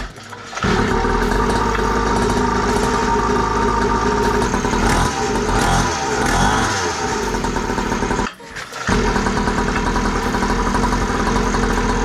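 Small 50cc engine of a FunBikes MXR 50 children's dirt bike running steadily at low revs, pitch wavering a little around the middle. The sound breaks off briefly twice, at the start and about eight seconds in.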